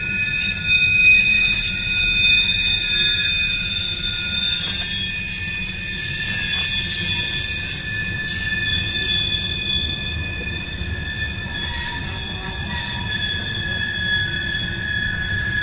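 Freight train of hopper cars rolling past, its wheels squealing on the rails in several steady high tones over a continuous low rumble of the cars.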